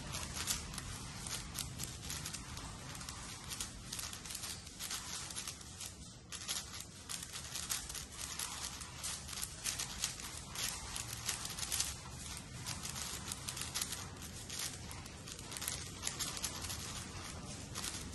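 A 6x6 speed cube being turned fast by hand: a dense, unbroken stream of plastic clicks and clacks as its layers are turned.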